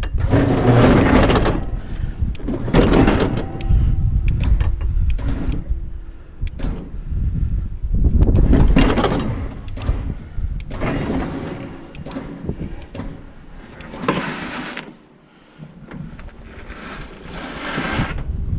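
Electric winch hauling a ride-on mower up steel ramps into a dump truck bed, run in repeated short bursts of a second or two each.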